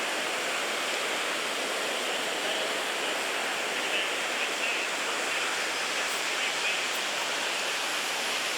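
Chattahoochee River rapids: a steady, unbroken rush of whitewater.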